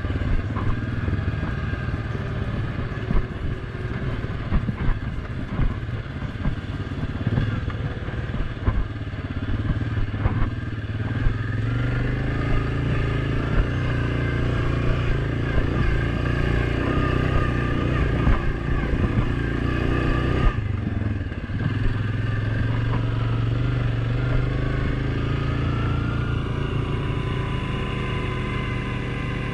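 Off-road vehicle engine running steadily under way, with frequent knocks and clatter from the machine jolting over rough ground. The engine eases off briefly about twenty seconds in, then picks up again.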